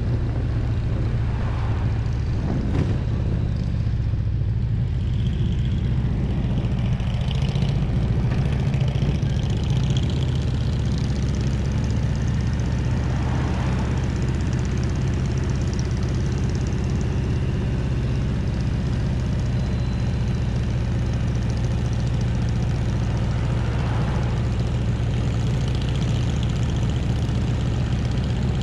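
Harley-Davidson Road Glide's V-twin engine running steadily at cruising speed, with a hiss of wind and road noise over it.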